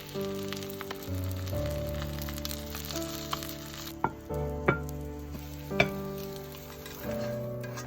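Food sizzling in a frying pan, the sizzle thinning out about halfway. Three sharp clicks follow over the next two seconds, with soft background music throughout.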